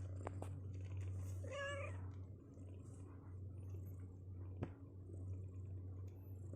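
A two-week-old kitten mews once, a short wavering cry about a second and a half in. A steady low hum and a few faint clicks run underneath.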